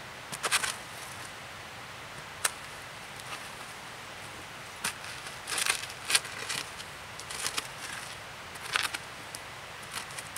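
A hand-held chunk of wood scraping and knocking against bare earth, in short irregular strokes spaced a second or more apart.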